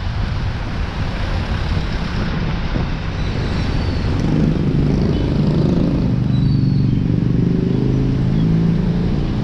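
Road traffic with wind rushing on the microphone; from about four seconds in, a motor vehicle's engine passes close by for several seconds.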